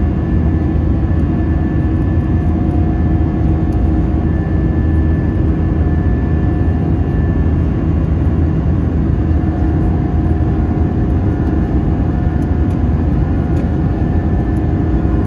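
Steady cabin noise inside an Airbus A320 in flight: a constant drone of the jet engines and rushing air, with a few steady hums running through it.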